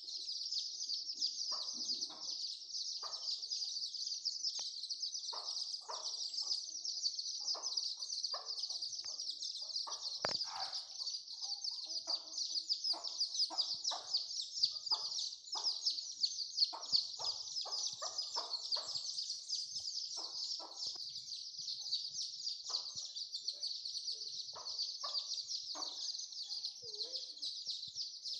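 A brood of Aseel chicks peeping continuously in a dense, high chorus, while the mother hen clucks in short low calls repeated every second or so.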